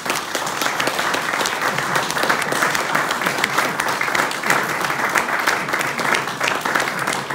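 Audience applauding: many people clapping at once, steady and loud.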